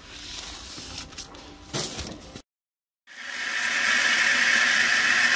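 A garden hose spray nozzle jetting water into a plastic bucket of sand and masonry cement, a steady hiss that starts after a brief cut about three seconds in, adding the water to mix mortar. Before it, faint rustling and a few soft knocks as a bag of masonry cement is handled.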